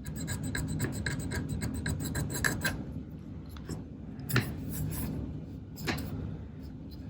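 Quick scratching strokes of a wooden toothpick picking grime out of a screw hole in a plastic camera body for about the first three seconds, followed by two sharp taps.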